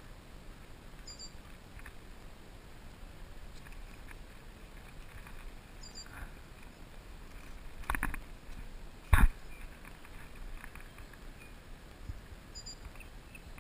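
Handling noises aboard a kayak: a few quick clicks about eight seconds in, then a single sharp knock a second later, the loudest sound, over a low steady hiss of wind and water.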